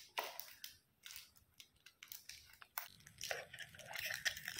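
Gift wrapping paper being picked at, torn and crinkled as a small wrapped box is opened: faint scattered crackles and rips, growing busier near the end.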